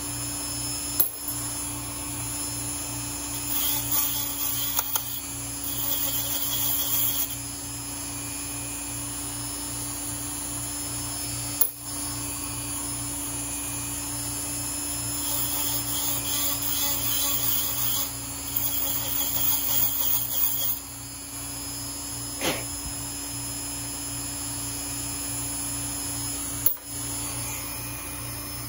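Small electric power tool running steadily while .223 brass cases are chamfered and deburred, with two stretches of high scraping as brass is cut at the case mouth.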